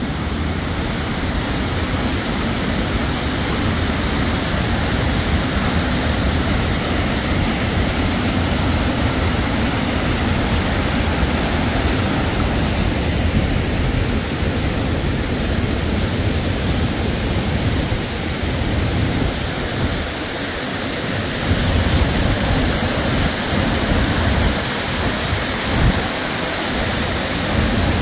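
Jaun waterfall running strong: a steady, loud rush of white water.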